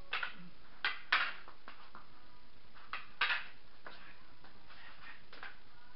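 Arnis sticks clacking against each other as strikes are blocked in a partner stick drill: irregular clusters of short, sharp clacks, with quick pairs near the start, around a second in and around three seconds in, and fainter taps later.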